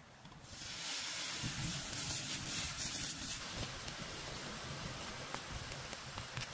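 Liquid poured in a thin stream into a hot pan of frying mutton pieces, sizzling and hissing steadily with steam; the sizzle starts about half a second in.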